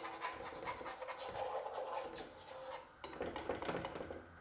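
Metal fork scraping and stirring runny beaten egg in a non-stick frying pan, working it so the egg doesn't stick to the pan, which was not buttered. A dense run of scratching strokes, a brief pause about three seconds in, then a few more.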